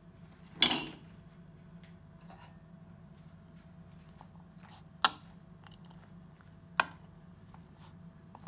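Metal fork tossing a shredded cabbage and carrot salad in a bowl: faint rustling and small clicks, a louder knock about half a second in, and two sharp clinks of the fork on the bowl about five and seven seconds in.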